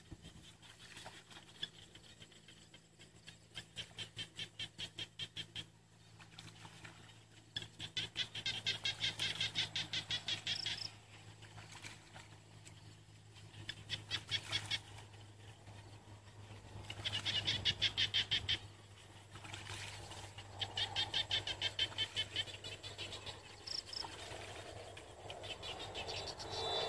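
Small animals calling: rapid pulsed trills, each lasting a couple of seconds and repeating every few seconds, with a low steady hum beneath.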